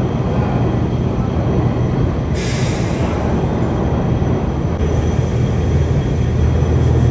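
Steady low mechanical rumble and hum of heavy machinery, with a short hiss about two and a half seconds in.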